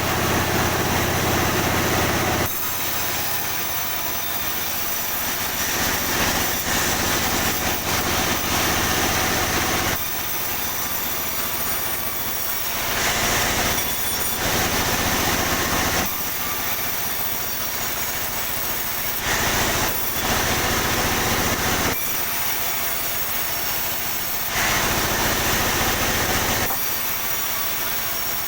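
Sawmill saw cutting pine boards. The sound switches back and forth every few seconds between a loud, heavy hum and a thinner, high-pitched whining hiss as the saw works through the timber.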